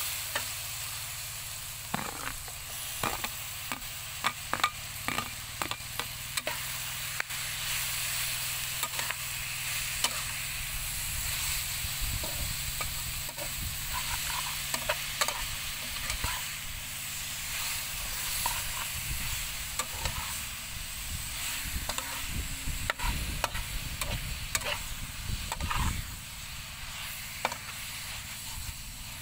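Pork and pickled greens sizzling in a frying pan while a metal spatula stirs them, with frequent sharp clicks and scrapes of the spatula against the pan over a steady frying hiss.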